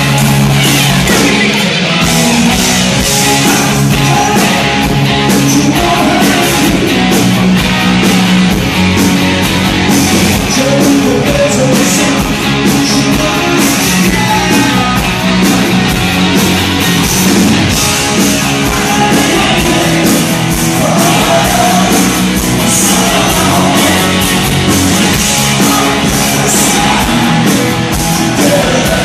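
Live rock band playing loud: distorted electric guitar, bass and a steady drum beat, with a male voice singing at times.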